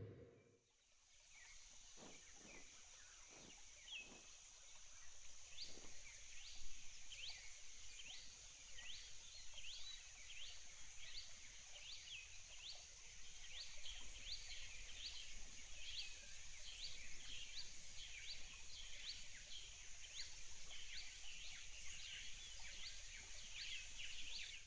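Forest ambience: a steady high insect drone, with short rising chirps repeating about one and a half times a second from about five seconds in.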